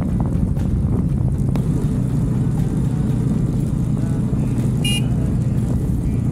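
Bajaj Dominar 400's single-cylinder engine running steadily at cruising speed, with a brief high-pitched chirp about five seconds in.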